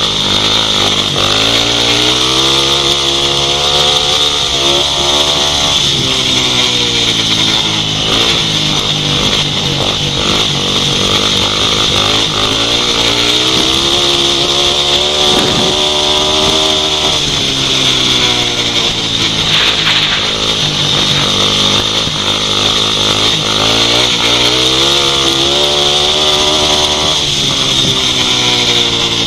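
Upright solo grasstrack racing motorcycle engine at full race pace, its pitch climbing and dropping several times as the rider drives down the straights and backs off into the bends, over a steady high hiss.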